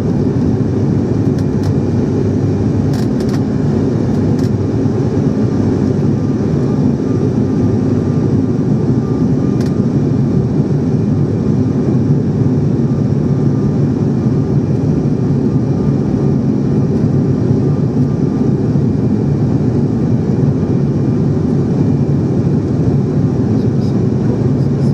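Steady, loud drone of an airliner heard from inside the passenger cabin in flight, with a faint steady whine above it.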